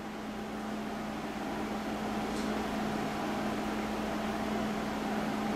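Steady hiss with a constant low electrical hum and no distinct events: room tone in a quiet room, rising slightly in level.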